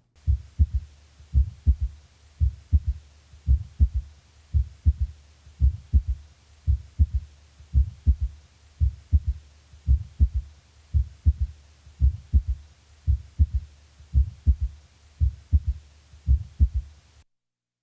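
Heart sounds through a stethoscope with a third heart sound (S3). Each beat's first and second sounds are followed by a soft, lower-pitched third sound, the beats repeating at a little over one a second.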